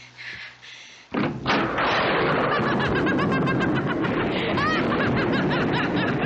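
A sudden loud crash about a second in, then a steady, loud wash of storm rain and wind with wild laughter and cries over it.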